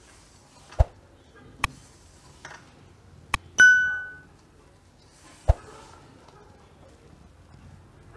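A handful of sharp clicks and, about three and a half seconds in, a bright bell ding that rings and fades within a second: the sound effect of a subscribe-button-and-bell animation. Beneath it, a soft rustle of hands mixing crumbly gram-flour and fenugreek-leaf batter in a steel bowl.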